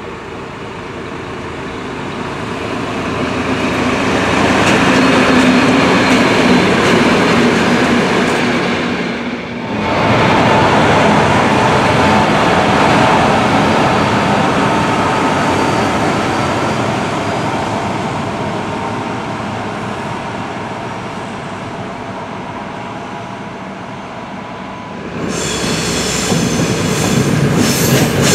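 Finnish Dv12 diesel-hydraulic locomotives passing on the track: a single locomotive approaches and grows steadily louder, then three coupled Dv12s go by close with engine noise and wheels on rail, slowly fading. Near the end another Dv12 runs with high-pitched wheel squeal.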